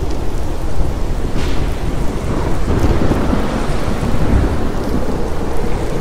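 Steady heavy rain with a low rolling rumble of thunder, the rumble heaviest through the middle.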